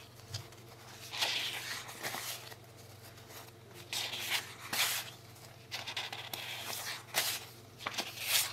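Sticker sheets rustling and sliding against one another as they are handled and fanned, in several short bursts.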